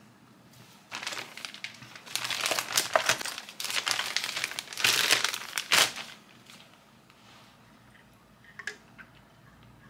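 Plastic-and-card toy packaging crinkling as it is handled, for about five seconds, then a couple of faint clicks.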